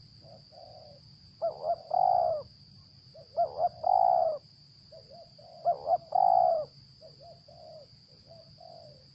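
Spotted doves cooing: three loud phrases about two seconds apart, each two short notes then a longer coo, with softer coos in between.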